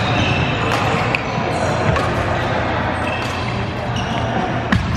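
Busy badminton hall: scattered racket-on-shuttlecock hits and sneaker squeaks from surrounding courts over a steady hall hum, with one sharper hit near the end.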